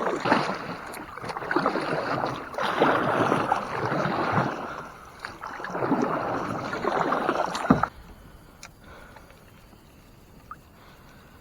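Water swishing around a kayak on a pond, in a few surges. It cuts off abruptly about eight seconds in, leaving only faint background.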